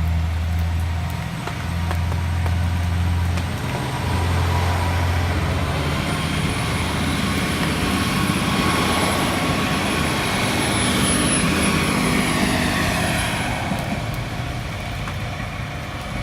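A train passing over a level crossing: loud, steady running noise with a low hum in the first few seconds and a whine that falls in pitch during the second half.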